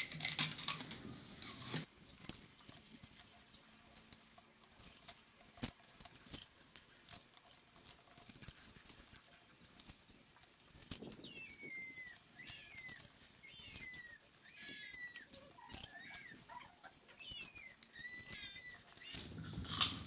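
A small animal making a run of short high chirps in the second half, over scattered light clicks and taps.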